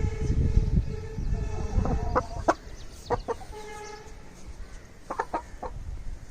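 Aseel chickens clucking in short, sharp calls that come in small groups. There is a steady hum and a low rumble during the first two seconds.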